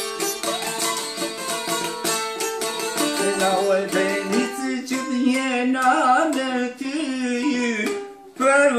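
Çifteli, a two-string Albanian long-necked lute, played with rapid plucked notes in a folk melody, joined by a man's singing from about halfway, with a short break near the end.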